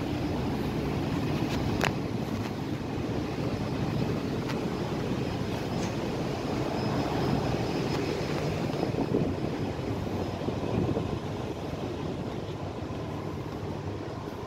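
Steady low rumble of a ship's machinery with wind blowing across the microphone, and a faint steady hum. A single sharp click about two seconds in.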